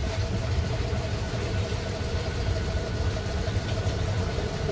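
Engine running steadily at low speed: a constant low rumble with a faint steady whine over it.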